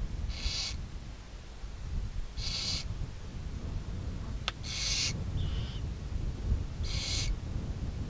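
Barn owl snoring-hiss calls from the nest box: four short rasping hisses about two seconds apart. There is a sharp click just before the third hiss and a brief thin squeak right after it, over a steady low rumble.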